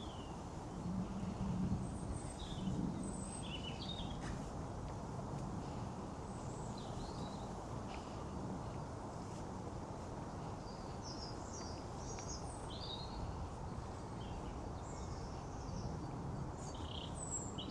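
Small birds chirping in short scattered calls over a steady low outdoor background hum.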